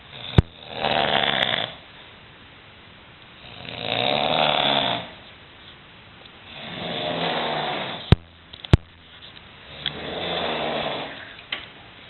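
A man snoring loudly and deeply: four long snores about three seconds apart, each lasting a second or more. Sharp clicks sound just before the first snore and twice about eight seconds in.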